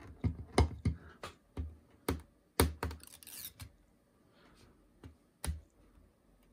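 Fingernails clicking and picking at a spring-steel PEX flex build sheet and the printed plastic on it: a run of sharp, irregular clicks, about two or three a second. A short scratchy peel comes about three seconds in, then two more clicks.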